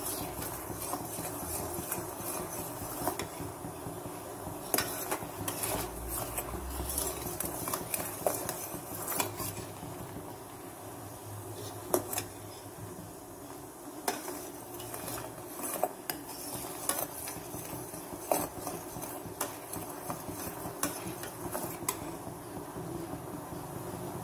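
A metal spoon stirring a pan of bubbling dark syrup, scraping and clinking irregularly against the pan's bottom and sides.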